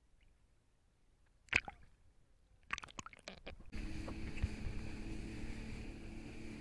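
Small water splashes and knocks against the camera about one and a half and three seconds in, then from about four seconds a jet ski's engine running steadily at speed, with a hiss of spray and water rushing past.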